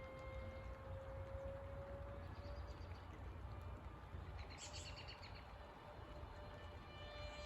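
Distant RC model airplane engine droning as the plane circles: a steady whine that fades out a little over two seconds in and comes back slightly higher near the end. A short bird chirp sounds around the middle.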